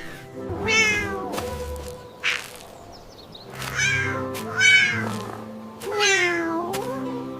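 A cat meowing four times, drawn-out calls that glide in pitch, over background music.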